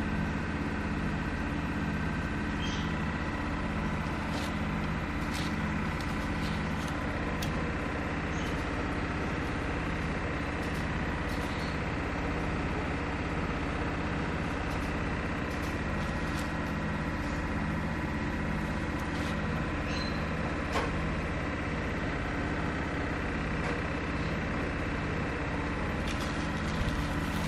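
An engine idling steadily, a constant low hum with an even pulse, with scattered light clicks and crinkles over it.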